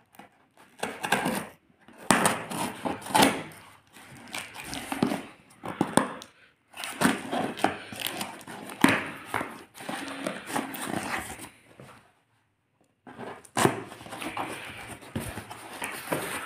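Cardboard parcel being opened: a knife blade slits and scrapes along the packing tape, and the flaps rip and rustle as they are pulled back, in irregular bursts with a brief pause about twelve seconds in.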